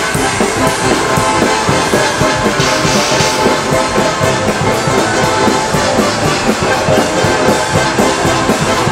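A live band playing loud rock music, with the drum kit to the fore.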